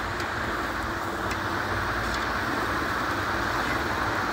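Steady frying hiss from onions and spices cooking in an aluminium pot over the stove flame, with a few faint scrapes of the metal ladle stirring them.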